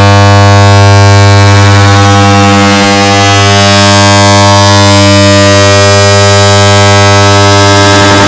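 Air conditioner turning on, heard as a very loud, harsh, steady low buzz with many overtones.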